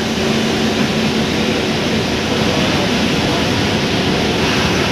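Leyland BS-III bus's turbocharged diesel engine running steadily on the move, its turbocharger rushing over the engine noise, heard from inside the bus.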